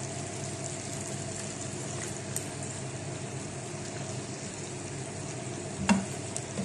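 Chicken pieces sizzling steadily in oil in a frying pan. About six seconds in, a spatula knocks against the pan as the chicken is stirred.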